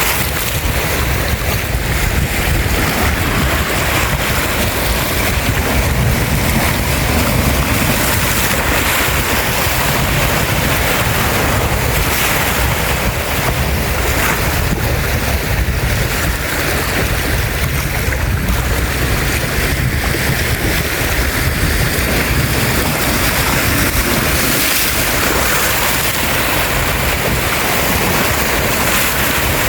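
Lake Michigan waves washing onto the shore, a steady rush of water, with wind buffeting the microphone.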